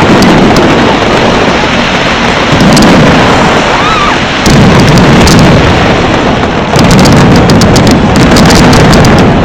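Large fireworks display going off in quick succession: a loud continuous rumble of booms that surges about two and a half, four and a half and seven seconds in, with clusters of sharp crackles at the second surge and again around seven to eight seconds.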